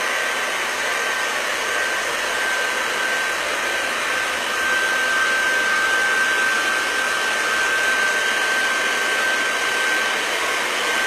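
Hand-held hair dryer running steadily: a constant rush of air with a steady high whine. It is drying freshly applied relief texture paste.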